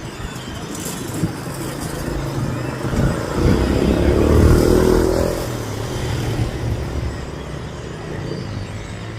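A motor vehicle's engine running, its sound swelling to a peak about four and a half seconds in and then fading, as of a vehicle passing.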